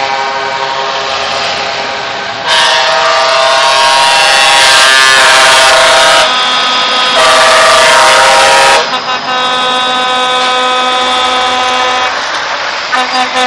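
Truck air horns blaring in long, held blasts as the trucks pass, with the pitches changing as different horns take over. The loudest blasts come from about two and a half to nine seconds in, followed by a steadier, quieter horn near the end.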